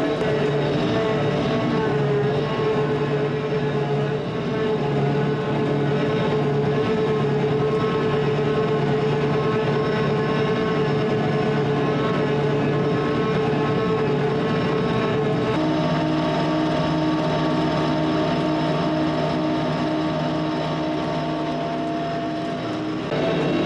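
Vehicle engine running steadily. Its tone changes abruptly about fifteen seconds in and again near the end.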